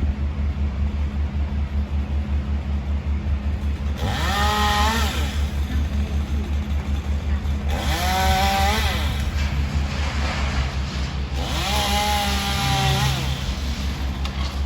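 Chainsaw revving three times, each rev rising in pitch, held briefly and dropping back, over a steady low engine running throughout.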